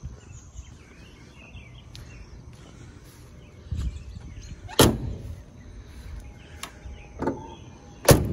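Doors of a 1960 Buick LeSabre sedan being opened and shut: a loud sharp thunk about five seconds in, a lighter click a little after seven seconds, and another loud thunk near the end.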